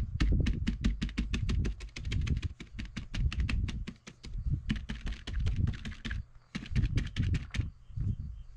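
Crumpled paper dabbed rapidly against a spray-painted poster board, making quick taps about seven or eight a second. It is stippling leaf texture into wet paint, and the tapping stops near the end.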